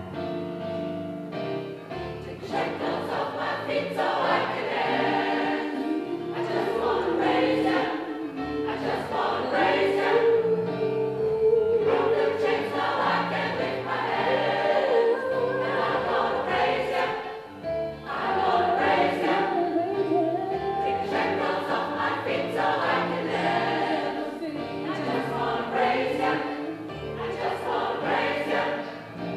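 Gospel choir singing in parts with keyboard accompaniment, the voices swelling louder from about two seconds in and dipping briefly around two-thirds of the way through.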